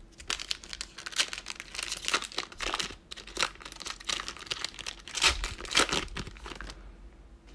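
Foil cello-pack wrapper of Panini Mosaic football trading cards being torn open and crinkled by hands: a run of dense, sharp crackles that dies down near the end.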